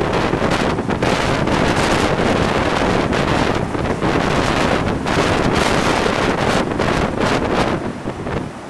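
Gale-force wind of about 60–70 mph buffeting the microphone in loud, rapid gusts, over the rush of storm-surge waves breaking around the pier. The wind eases near the end.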